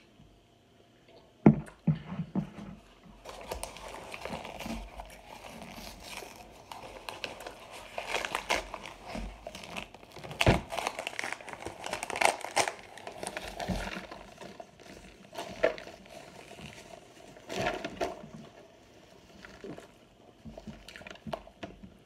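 A cardboard box of cornstarch being handled and torn open, its packaging crinkling and crackling, with scattered sharp knocks and clicks. The loudest knock comes about halfway through.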